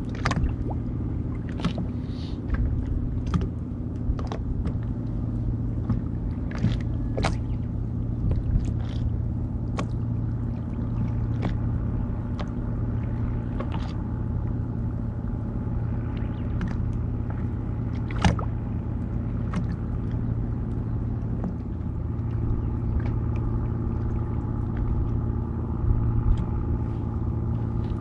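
Steady low rumble of a boat's motor running, its tone shifting a little near the end, with scattered small clicks and knocks over it.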